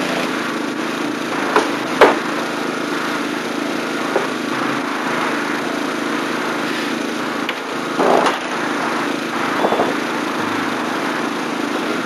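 A small engine running steadily, with a few sharp knocks over it, the loudest about two seconds in and a short cluster around eight seconds.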